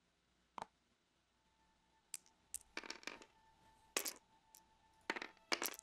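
Plastic X-Wing miniatures dice being picked up and rolled on the play mat: a scattered series of short clicks and clatters, the loudest near the end.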